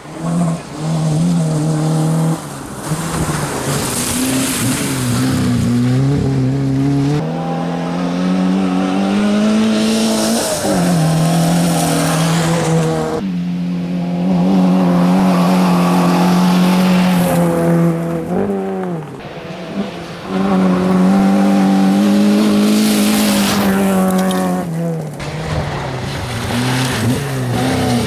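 Peugeot 205 Rallye rally car engine revving hard on a gravel stage, the pitch climbing through each gear and dropping at the shifts, several times over, with hiss from the tyres and gravel.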